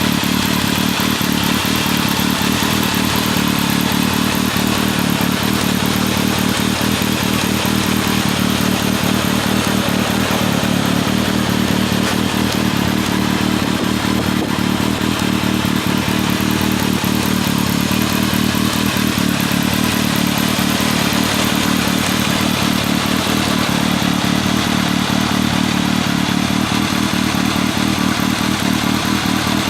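Kawasaki ZRX1200 DAEG's inline-four engine running at a steady speed through an MH Asano titanium-carbon slip-on muffler.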